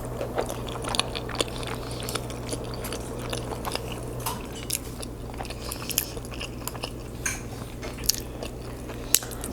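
Close-miked chewing and wet lip smacking on a big mouthful of lasagna: many quick irregular clicks and squishes over a steady low hum.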